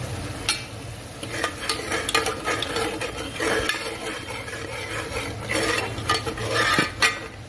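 A steel spoon stirring and scraping a ground spice paste (masala) as it sizzles and bubbles in a pressure cooker. The paste is being sautéed with a little water, and the spoon gives frequent irregular scrapes and clicks against the pot.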